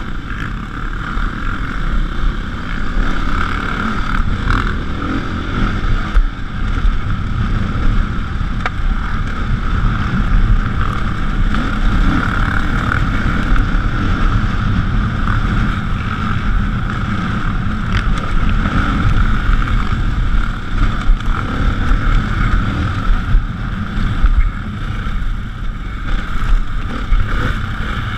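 Dirt bike engine running as it is ridden along a rough dirt trail, the throttle opening and closing so the sound rises and falls unevenly.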